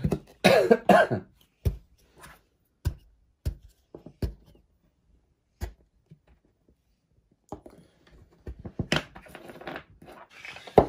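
Kinetic sand play: a hard plastic cutter tool knocking on a tabletop in scattered single taps, then a longer stretch of crumbly scraping and squishing as the sand is pressed and shaped by hand.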